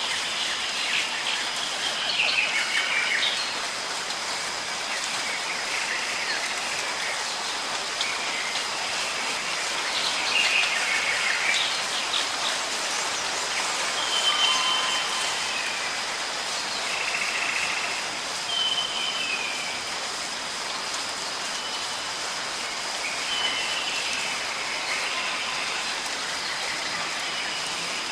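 Steady rain falling, with birds chirping and giving short whistled notes over it every few seconds.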